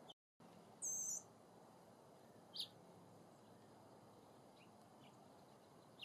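Small bird calls over a quiet background: one loud, high, wavering call about a second in, lasting under half a second, then a single short chirp and a few fainter chirps near the end.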